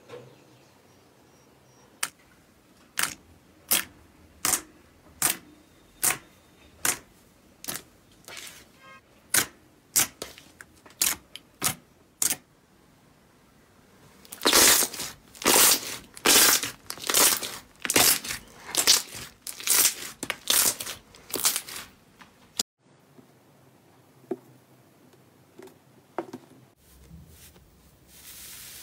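Slime being pressed and worked by hand: a run of sharp little pops about one and a half a second, then louder, noisier presses at a similar pace as fingers push into a thick white slime, followed by faint handling sounds.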